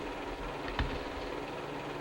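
8mm film projector running: a steady mechanical hum and whirr, with one low thump a little under a second in.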